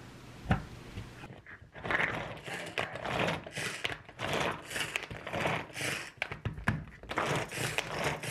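Pull-cord manual food chopper chopping strawberries, pulled over and over: a run of short whirring rattles, about two a second, starting a little under two seconds in. A single click comes about half a second in.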